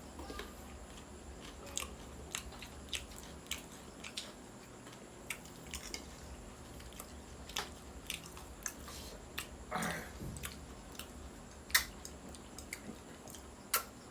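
A person biting and chewing roast chicken close to the microphone: many short crunching clicks, a louder one about two-thirds of the way through and another near the end.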